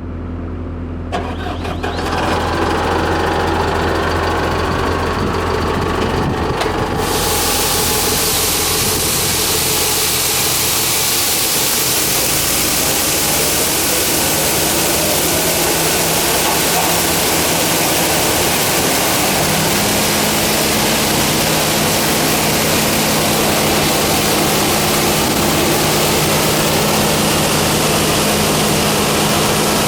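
Bucher CityCat 5000 street sweeper's Mercedes OM 904 LA four-cylinder diesel running, steady at first. About seven seconds in, a loud steady rushing noise joins in. About twenty seconds in, the engine's pitch steps up slightly.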